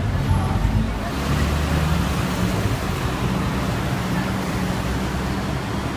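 Night street traffic: a steady low engine rumble from vehicles at close range, with a constant hiss of road noise.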